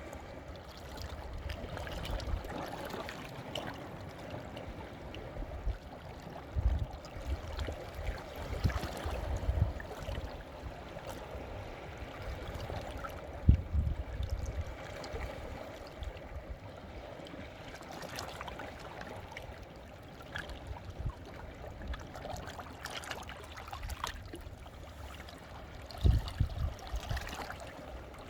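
Sea water washing in among volcanic shore rocks and draining back through the gaps, trickling and gurgling steadily. A few low thumps break through, the loudest about halfway and near the end.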